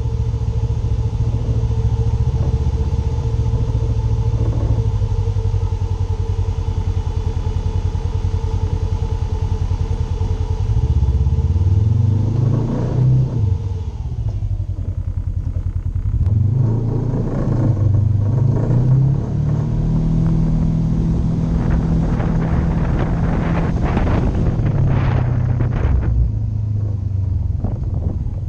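Polaris RZR 900 side-by-side's engine running under way. It holds steady for the first ten seconds or so, then its pitch rises and falls several times as the throttle is worked in the second half.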